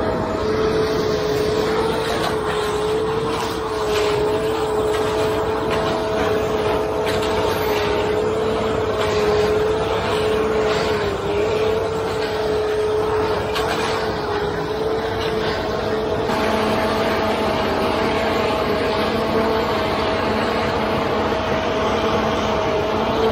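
Concrete mixer truck with a conveyor running steadily during the pour, a constant two-note whine over the engine noise.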